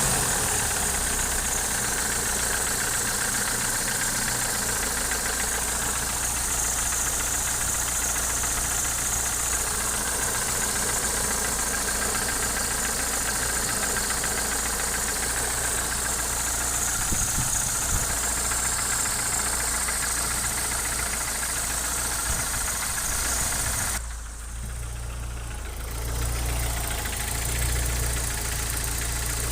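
Opel C20NE 2.0-litre four-cylinder engine idling with a persistent knock that remains after the hydraulic lifters were replaced; the owner does not know its cause. The sound turns duller and quieter for about two seconds near the end.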